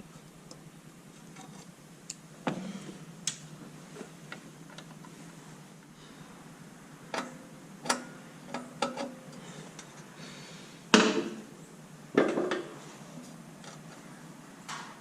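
Irregular clicks and knocks of a screwdriver and hand tools working the screws of a tractor's dash panel, with the loudest clunks about two-thirds of the way in.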